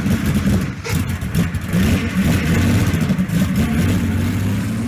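Car engine running just after starting, its note wavering up and down as it is lightly revved.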